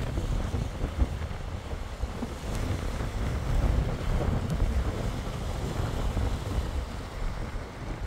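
Strong gusty wind buffeting the microphone in a deep, uneven rumble, over the wash of choppy storm waves.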